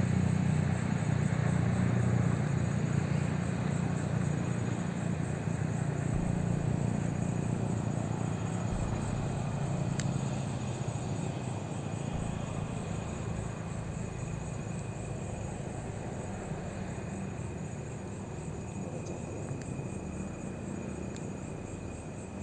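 Low engine rumble that slowly fades away, with a faint steady insect trill that becomes clearer as the rumble dies down.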